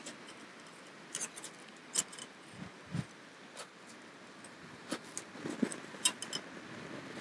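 Scattered light clicks and metallic taps, about eight of them at irregular intervals, as small metal sierra cups are set on a camping gas stove's pot supports and the stove is handled.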